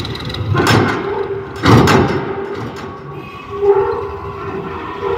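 Sonalika DI 50 tractor's diesel engine running under load as it pulls a hydraulic tipping trailer with its bed raised, with two loud rushes of soil sliding off the bed in the first two seconds. A steady mid-pitched whine comes and goes over the engine.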